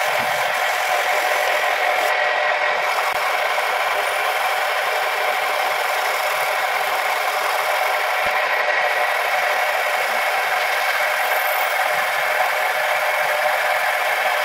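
Wood lathe running, with a steady rubbing of a tool against the spinning wood and a constant whine from the machine.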